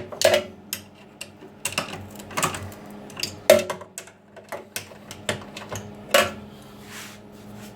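Irregular clicks and knocks of bolts and hand tools being handled while mounting hardware on a workbench, with louder knocks about three and a half and six seconds in, over a faint steady hum.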